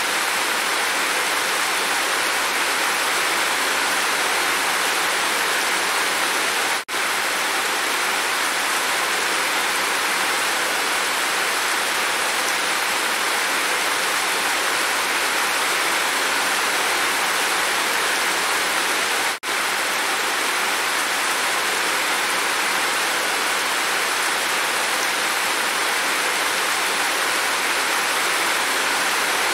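Heavy rain falling steadily, with water pouring off a roof edge: an even hiss, cut by two split-second dropouts about seven and nineteen seconds in.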